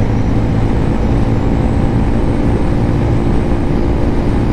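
Lifan KPM 200's 200cc single-cylinder engine running steadily at cruising speed, mixed with heavy wind and road noise on the helmet microphone.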